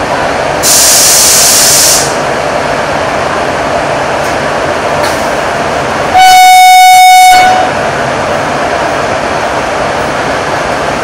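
WAP-4 electric locomotive's horn sounding once for just over a second, signalling departure, over steady rail-station noise. Near the start there is a loud hiss lasting over a second.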